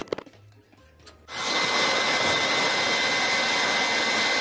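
A handheld blower running steadily, a loud rushing of air with a thin high whine. It starts about a second in, after a few brief clicks.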